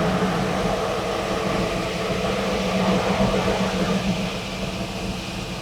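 Jeep driving at speed: a steady engine drone under loud road and wind noise.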